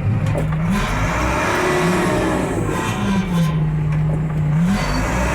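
Diesel engine of a John Deere 344G wheel loader working under load, its revs rising and falling: the engine note climbs about a second in, drops, holds low, then climbs again near the end.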